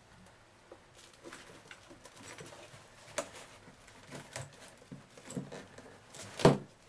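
Kirby vacuum's plastic fill tube being twisted and worked loose from the boot by hand: scattered light clicks and rustling of plastic and cloth, with one louder click near the end.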